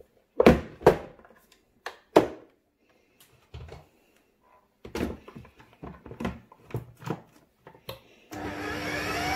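Plastic clunks and clicks as a food processor's bowl and lid are handled and locked on, then near the end the motor starts on pulse and whines up in pitch as its S-blade chops raw carrots finer.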